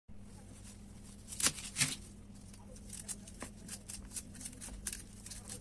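Kitchen knife cutting the tough, knobbly skin off a celeriac: a run of short scraping cuts, several a second, with two sharper, louder strokes about a second and a half in.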